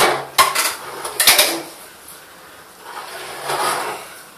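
Hard plastic clatter and knocks as a car headlight's plastic housing is turned over and handled on a wooden table: a handful of sharp knocks in the first second and a half, then softer handling sounds.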